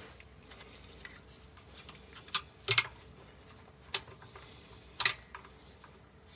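Light metallic clicks and clinks as a gloved hand threads the rear oil pump pickup tube bolt in by hand. There are a handful of sharp, separate clicks, the loudest a little under three seconds in and about five seconds in.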